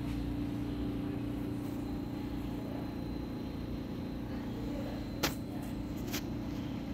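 Steady low mechanical hum of the room, with two sharp clicks, the first a little after five seconds in and the second about a second later.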